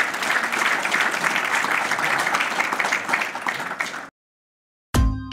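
Audience applauding steadily, cut off abruptly about four seconds in. After a short silence, near the end, an electronic logo sting starts with a sudden loud whoosh and a falling tone.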